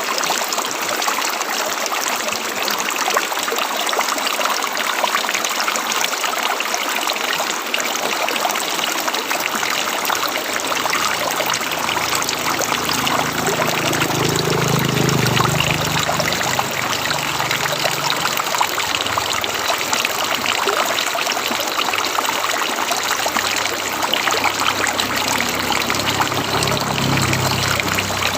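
River water flowing, a steady rushing and trickling, with a low rumble that swells for a few seconds about halfway through.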